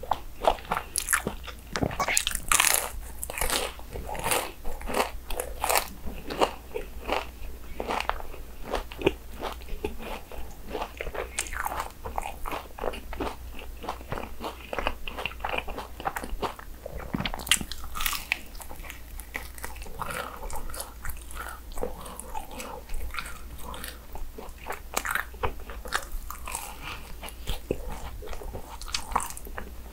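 Fried churros being bitten into and chewed, a dense run of crisp crunches and crackles with chewing in between.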